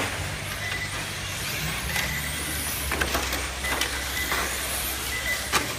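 Small radio-controlled model cars driving on a smooth indoor court floor: motors whining as their pitch rises and falls, with a few short sharp clicks or tyre squeaks, over a steady low hum.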